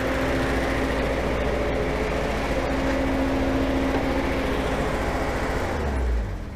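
1975 Datsun 280Z's fuel-injected straight-six engine running steadily at idle on freshly installed injectors, then dying away near the end.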